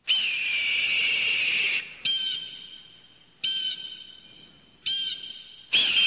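Repeated high, hoarse screams of a bird of prey. A long scream comes first, then three short calls about a second and a half apart, and another long scream starts near the end.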